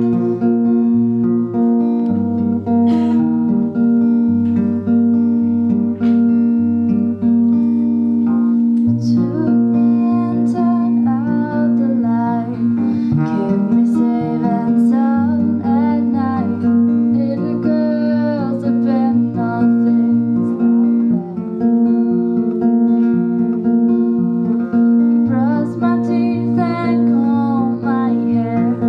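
Acoustic guitar played alone as an intro, then a young woman's singing voice comes in over it about nine seconds in, in a gentle guitar-and-vocal song.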